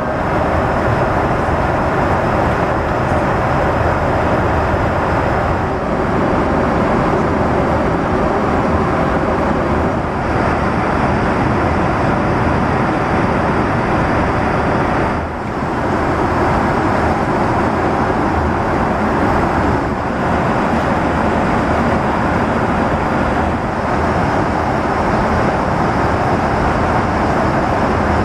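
Steady cabin noise of a Boeing 777-300ER airliner in flight: an even rush of airflow and engine hum, with a brief dip about halfway through.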